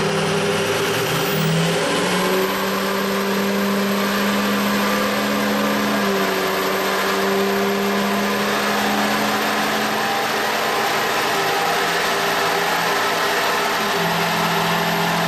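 Ford 6.0L Powerstroke V8 turbodiesel pulling at wide-open throttle under load on a chassis dyno, running up through the rev range with the tires spinning the dyno rollers, during a stock, untuned baseline run.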